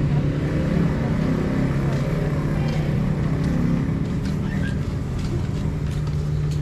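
Engine running steadily: a constant low hum with a few faint knocks over it.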